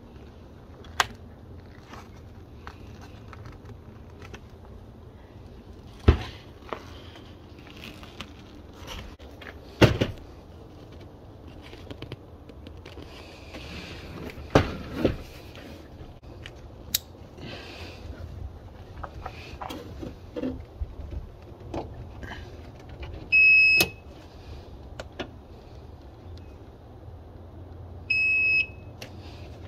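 Scattered clicks and knocks of plastic trim and wire connectors being handled. Then come two short, loud, high beeps about five seconds apart from a retrofit power-liftgate unit's buzzer; the second sounds as the tailgate's close button is pressed.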